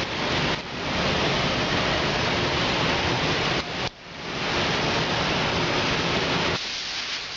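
Steady rushing hiss of a bodywork tool working on a car fender during paint preparation. It dips briefly near the start, cuts out about four seconds in and builds back up, then stops again near the end.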